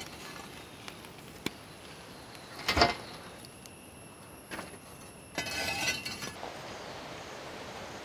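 Burning charcoal embers clinking and scraping onto the steel lid of a large biryani pot as they are pushed on with metal tongs: a sharp click, one loud clank about three seconds in, and a rattling scrape near six seconds. The embers on the lid give the dum stage its heat from above.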